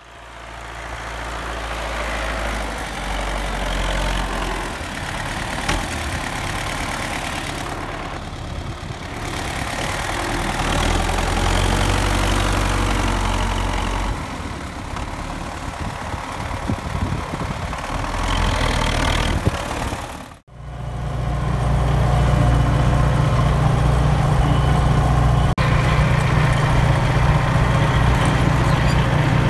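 Belarus MTZ-82 tractor's four-cylinder diesel engine running as the tractor drives through snow. After a sudden cut about two-thirds of the way in, the engine is heard close from the driver's seat as a louder, steady low drone.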